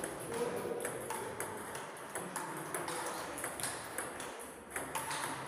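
Table tennis balls bouncing on tables and bats, a run of short, sharp, irregular clicks several times a second.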